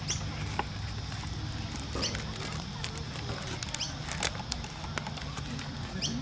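Athletic shoes squeaking on a court floor during play: scattered short, high squeaks and taps, some rising in pitch, over a steady low hum, with faint voices.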